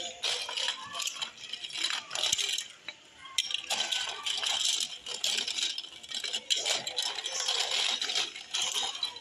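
Large plastic interlocking toy blocks clattering as a child's hands rummage through a bin full of them: a dense run of small clicks and knocks, with a brief lull about three seconds in.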